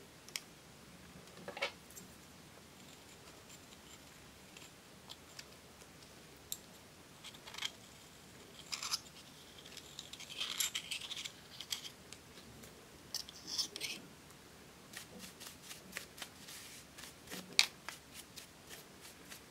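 Pressed eyeshadow powder being scraped and crumbled out of its compact pan with a small metal pick, with scratchy scraping in short spells midway. Sharp clicks and taps of the plastic compact case are scattered through, the sharpest near the end.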